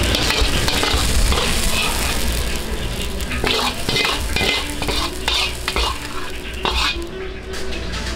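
Fried rice sizzling in a wok as it is stir-fried, a metal spatula scraping and striking the wok. From about halfway through come sharp clanks about two a second, over a steady low rumble.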